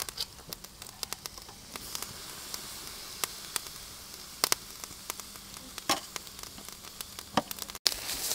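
Chicken drumsticks sizzling on a charcoal grill: a steady hiss broken by scattered sharp crackles and pops.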